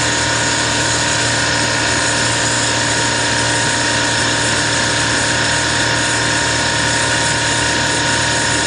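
Steady mechanical running noise with several held tones, from running refrigeration equipment around a Carlyle 06E semi-hermetic compressor. The level stays even throughout.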